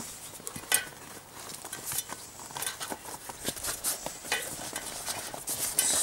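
Rubbing and scuffing of a partly inflated rubber inner tube being worked by hand into a loose bicycle tyre, with scattered light clicks and taps.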